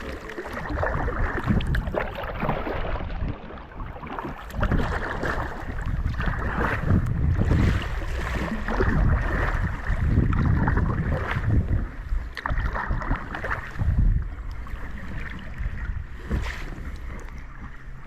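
Water splashing and rushing around a kayak as it is paddled downriver, with wind buffeting the microphone in uneven low gusts.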